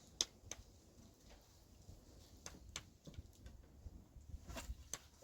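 Faint, irregularly spaced clicks and small taps.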